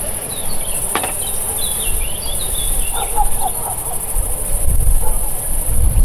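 Insects chirping in a steady, high-pitched chorus of the kind heard on a hot summer evening, with a few short bird chirps in the first half and a click about a second in. A low rumble builds in the second half.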